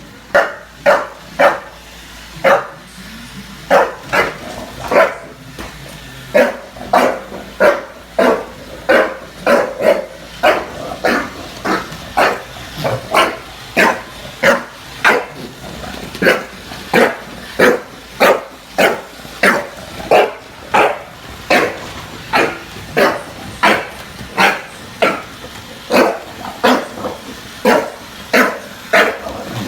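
A bulldog barking over and over, about one and a half to two barks a second, with a couple of short pauses early on.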